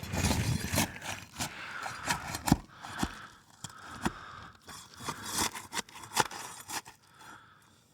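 Brittle roof shingles being pried and worked loose: irregular scraping and crackling with several sharp snaps as the shingles tear and break free, fading out near the end. The tearing shows the shingles are too brittle to be repaired.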